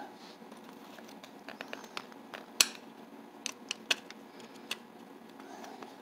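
Small metal clicks and clacks from the cast-iron parts of an antique Sargent mortise lock as its latch mechanism is worked by hand. They come as a scattering of separate clicks, one louder about two and a half seconds in.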